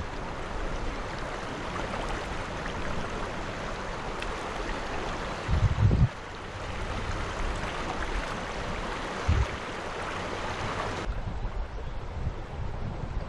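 Rushing river water, a steady hiss of flowing current, with two brief low thumps of wind or handling on the microphone. About eleven seconds in the water sound suddenly turns duller.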